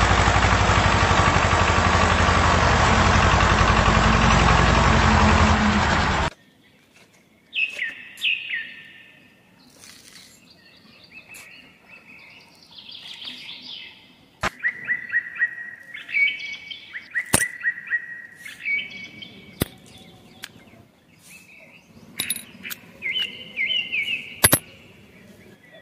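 Background music that cuts off abruptly about six seconds in. After it, small birds chirp in short runs of quick repeated notes, with a few sharp clicks among them.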